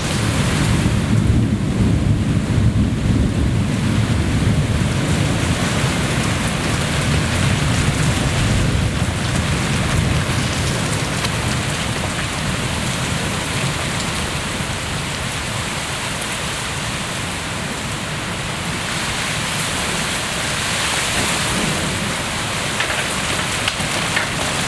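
Heavy rain falling steadily through a thunderstorm, with a long roll of thunder rumbling and dying away over the first ten seconds or so.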